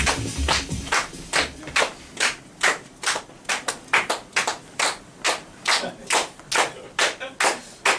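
Hands clapping in a steady rhythm, a little over two claps a second, as the electronic music cuts out in the first second or so. This is encore clapping, calling for one more song.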